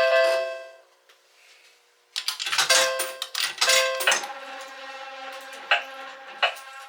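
Quarters clattering and ringing on metal in an IGT Wild Cherry slot machine: a quick irregular run of clinks from about two seconds in, each one ringing. An electronic jingle from the machine fades out at the start.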